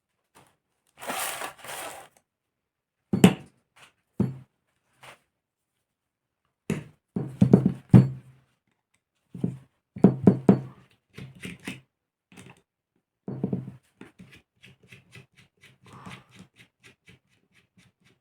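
Parts and tools of a Saito FA-300T model engine being handled on a bench during disassembly. There is a brief rustle about a second in, then scattered knocks and clatters in clusters, then a run of quick light ticks, about five a second, near the end.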